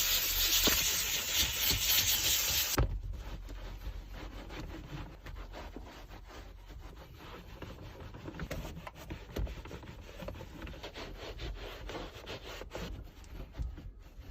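A loud, steady hiss of spraying air or steam that cuts off suddenly about three seconds in, followed by quieter, uneven rubbing and scrubbing on a surface during car cleaning.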